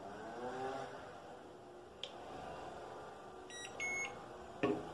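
Eachine EX4 drone remote controller beeping as it is switched on: two short beeps about three and a half seconds in, the second a little higher and longer. A knock just before the end as the controller is handled.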